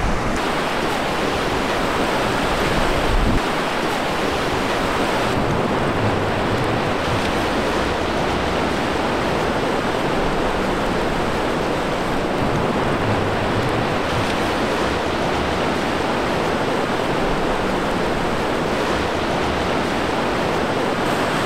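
Gulf surf breaking and washing up the beach in a steady rush, with wind rumbling on the microphone.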